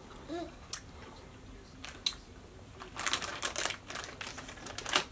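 Plastic Trolli gummy candy bag crinkling as it is handled, in a dense burst about three seconds in, with a few sharp ticks before it and near the end.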